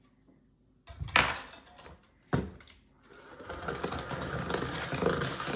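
Two knocks on the countertop, then an electric hand mixer starts about three seconds in and runs steadily, its beaters churning thick cake batter.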